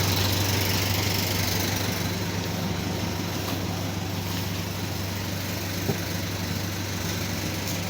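Steady low mechanical hum, like an engine or motor running without change, with a small click about six seconds in.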